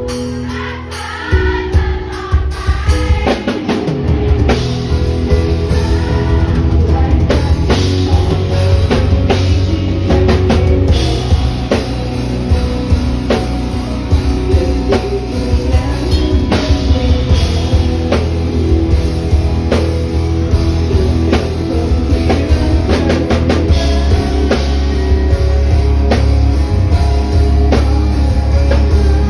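Live rock band playing a song at a sound check: drum kit, heavy bass and guitar with singing. The full band comes in about three seconds in.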